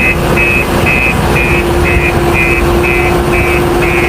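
Electronic reversing-style beeping from a toy road roller's sound effect, about two beeps a second, over a steady hum and an even hiss.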